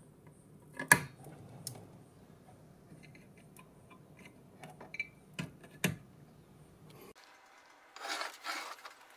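Handling noise from hands working under the Ultimaker 2 3D printer's build platform: scraping with a few sharp knocks against the frame, the loudest about a second in. Near the end comes a burst of rustling as the printer is handled.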